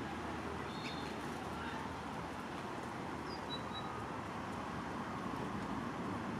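Steady wind noise on the microphone, a low, even rush. A bird chirps faintly a few times, about a second in and again around three and a half seconds in.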